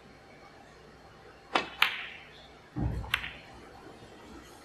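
Snooker shot: a sharp click of the cue tip on the cue ball, a second click of the cue ball striking an object ball about a quarter second later, then a deeper thud with another click about a second after that.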